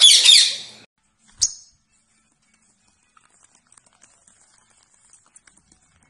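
A green parakeet gives one loud, harsh, high screech lasting under a second, then a single short sharp chirp; only faint light ticks follow.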